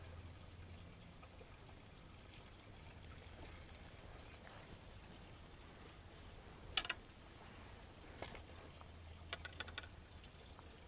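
Handling noise from a fishing pole and line: a sharp double click about two-thirds in, then a few lighter clicks and rattles, over a faint steady low rumble.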